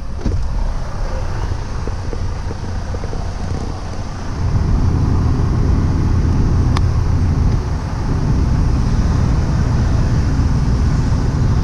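Semi truck's diesel engine idling as a steady low rumble, with wind on the microphone, getting louder about four seconds in. A single sharp click about seven seconds in as the call button on the CAT scale intercom is pressed.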